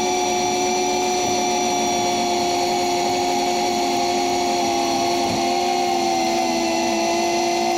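CFMoto UForce 600 side-by-side driving at a steady speed, its engine and drivetrain running with a constant whine that eases slightly lower in pitch in the second half.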